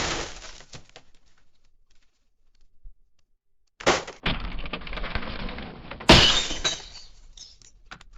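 Car crash sound effects: a crash dies away in falling debris and tinkling glass. A new crash hits about four seconds in with a stretch of crunching, and a louder impact about six seconds in shatters glass, then scattered pieces rattle down.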